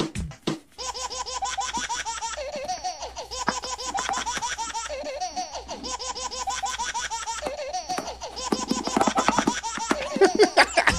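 A nearly empty plastic squeeze bottle being squeezed, sputtering and squelching as air spits out of its nozzle with the last of the liquid, a fluttering, warbling buzz that runs on for several seconds, heard through speakers.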